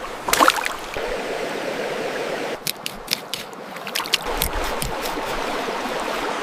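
Running stream water, with a splash about half a second in and a run of short sharp splashes or clicks in the middle.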